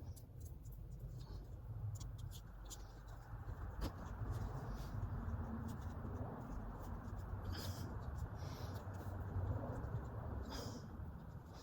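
Hands working on automotive wiring: small clicks and scratchy rustling as wires and a yellow connector are handled, with two louder scrapes about two-thirds of the way through and near the end, over a steady low rumble.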